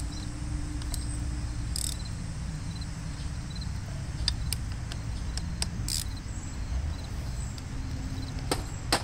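Small wire brush scrubbing crud off the greasy metal housing of a 1967 Gravely walk-behind tractor, a few short scratchy strokes scattered through, over a steady low rumble with insects chirping.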